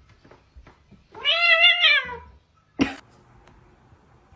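A domestic cat gives one loud, drawn-out meow about a second in, its pitch rising then falling. A single sharp click follows about a second later.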